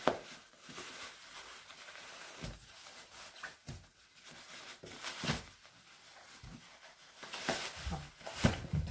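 Rustling and handling of a child's padded jacket as it is rolled up and tucked into its hood on a wooden table: scattered short rustles and soft taps, a few louder ones near the end.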